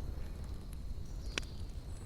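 Wood campfire burning with a low steady rumble and one sharp crackle of burning wood about one and a half seconds in.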